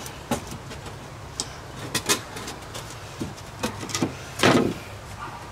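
Plywood board being slid and set into a golf cart's metal battery bay: a series of short knocks and scrapes of wood against the frame, the loudest a longer scrape about four and a half seconds in, over a steady low hum.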